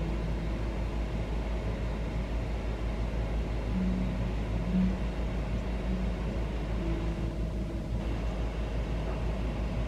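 Steady low rumble of background noise, with a few short faint hums now and then.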